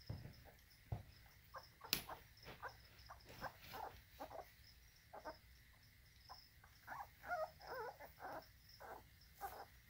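Feeder crickets in lizard tanks chirping steadily and high-pitched, under soft, wavering squeaks and whimpers from 3.5-week-old American Bully puppies. There is a sharp click about two seconds in.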